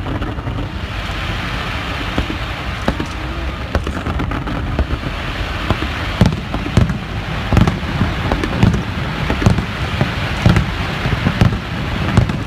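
Fireworks display: repeated booms of shells bursting over a steady rushing noise, the bangs coming thicker and louder from about halfway through, at roughly one or two a second.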